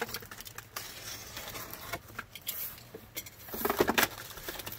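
Scratchy rustling and scattered light clicks of a cardboard box and its contents being handled, with a louder stretch of rustling about three and a half seconds in.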